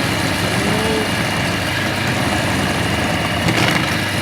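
CNC milling machine spindle running steadily while machining a 3 mm deep insert feature, with a slightly louder, brighter stretch near the end.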